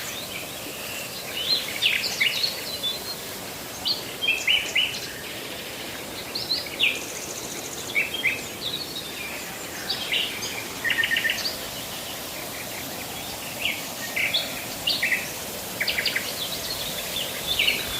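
Small birds chirping: clusters of short, sharp, high chirps that come again every second or so, over a steady outdoor hiss.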